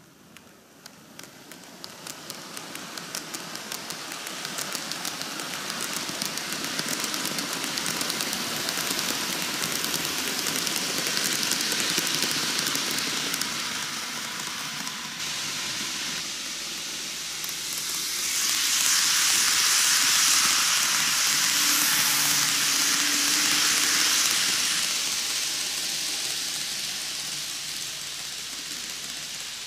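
N-gauge model train, a 12-car Micro Ace Keikyu 2100-series formation, running on TOMIX canted track: a steady whir and hiss of wheels and motor with quick clicks over the rail joints, growing louder as it approaches. About two-thirds of the way in it passes close and the hiss is loudest, then it eases off as the train runs away.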